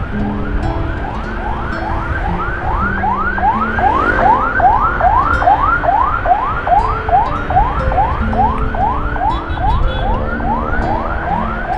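Emergency-vehicle siren in yelp mode: quick rising sweeps, about three a second, repeating steadily.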